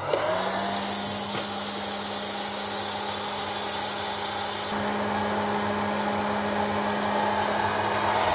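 Life Cinema hot-air popcorn maker switched on: its fan motor spins up with a brief rising whine, then runs steadily with a hum and an airy hiss, blowing hot air through the kernels before any have begun to pop. The hiss eases slightly about halfway through.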